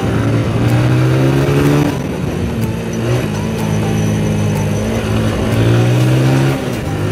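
TVS Apache RTR 160 single-cylinder engine pulling hard under acceleration, its pitch climbing and then dropping at an upshift about two seconds in, holding steady, and climbing and dropping again near the end.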